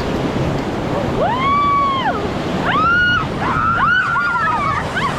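Whitewater rapids rushing steadily, with people whooping in long rising-and-falling "woo" calls, starting about a second in and overlapping several times near the end.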